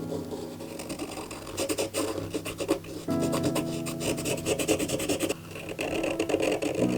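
Posca paint marker nib scratching and rubbing on a pebble in short strokes, over soft background music with sustained chords.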